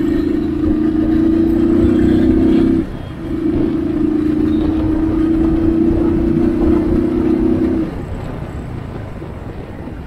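Royal Enfield Thunderbird 350's single-cylinder engine pulling under throttle as the motorcycle accelerates, over wind and road rush. The steady engine note drops out briefly about three seconds in and falls away near the end.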